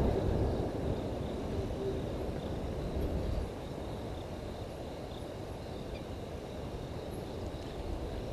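Outdoor waterhole ambience: a low rumbling noise that eases off about three and a half seconds in, with faint steady insect calls behind it.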